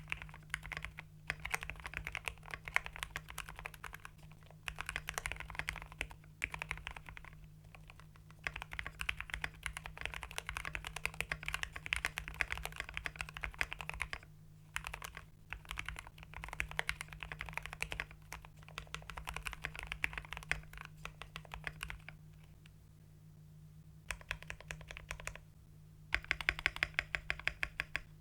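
Typing on a mechanical keyboard with factory pre-lubed Gateron Pro Red linear switches, an FR4 plate and PBT XDA keycaps: fast runs of keystrokes with short pauses between them, and a quicker, even run of separate clicks near the end. The factory lube is one the owner finds scratchy.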